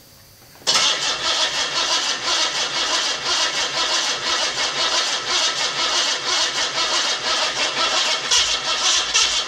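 Rebuilt Datsun L28 straight-six being started after it was flooded: it comes in suddenly about a second in and keeps going with an even pulsing beat.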